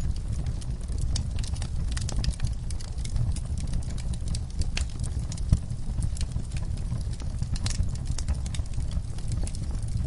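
Wood campfire crackling, with many small irregular pops over a steady low rumble of the flames and one sharper pop about halfway through.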